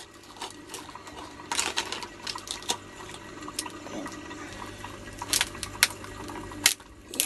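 Cooked crab being broken apart by hand: shell cracking and snapping, with a burst of crackling about one and a half to two seconds in and single sharp cracks later on, over a soft wet tearing.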